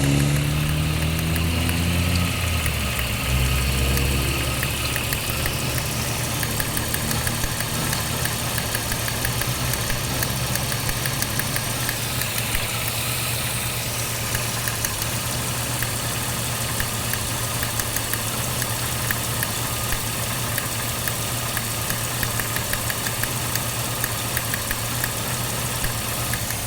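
1995 Jeep Cherokee XJ 4.0 straight-six idling with a misfire from a cracked spark plug. Its pitch shifts in the first few seconds, then it settles into a steady idle with a regular ticking.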